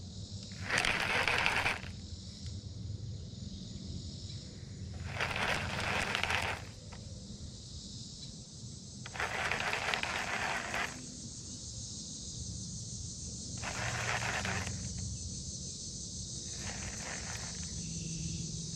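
A baitcasting reel cranked in short spurts of a second or so, about five times, as a lure is worked back in, over a steady high drone of summer insects.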